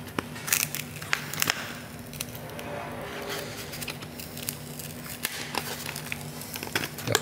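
Fingers picking and scraping at the rust-crusted cone edge and frame of a water-corroded car active-sound speaker, giving scattered crackles and scratches, several in the first second and a half and again near the end. A steady low hum runs underneath.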